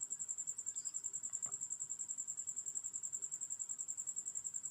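A cricket chirping steadily: a high-pitched trill of rapid, even pulses. There is a faint knock about a second and a half in.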